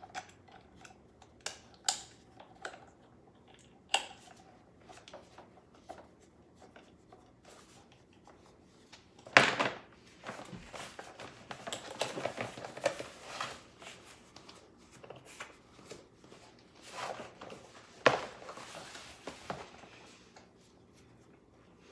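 Handling noise from a monofin and its packaging: scattered clicks and knocks, then a sharp sudden noise about nine seconds in followed by several seconds of rustling, and another sharp noise near the end.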